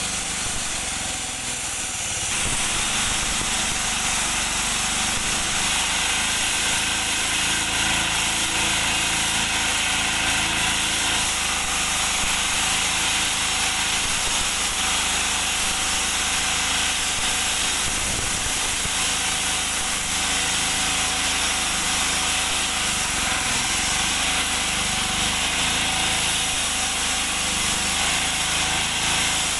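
Engine-driven walk-behind concrete saw cutting wet through a concrete road with its diamond blade: a steady, loud grinding hiss from the blade over the engine running under load, getting a little louder about two seconds in.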